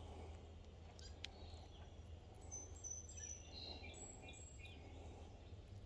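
Faint outdoor background: a steady low rumble, with a few light clicks about a second in and scattered short bird chirps around the middle.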